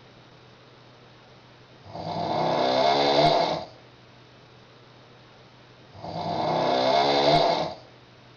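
A woman snoring loudly in her sleep: two long snores about four seconds apart. Each grows louder over nearly two seconds before cutting off, with quiet pauses between.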